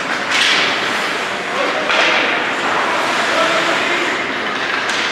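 Ice hockey play: skate blades scraping and carving the ice, with sharp scrapes about a third of a second in and again near two seconds, and a sharp stick or puck knock near the end.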